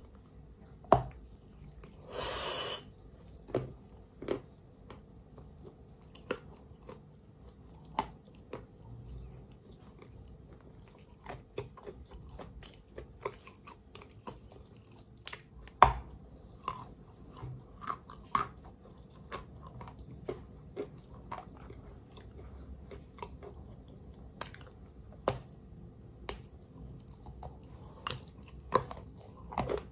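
Chalk coated in a creamy paste being bitten and chewed: irregular sharp crunches and cracks as the chalk breaks, with wet chewing between them. The loudest crunches come about a second in and around the middle.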